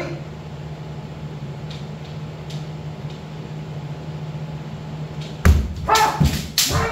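Kendo sparring: over a steady low hum, about five and a half seconds in, a sharp foot stamp on the wooden floor and bamboo shinai strikes on armour ring out, mixed with short loud kiai shouts.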